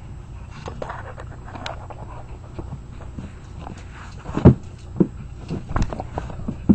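Dogs scuffling in play on a carpet, with padding paws and several dull thumps in the second half.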